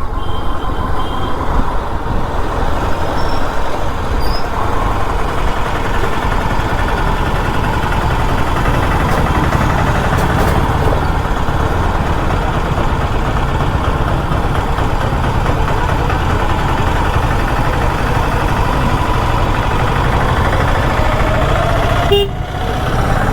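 Motorcycle riding along a road at speed, its engine running under steady wind rush over the microphone.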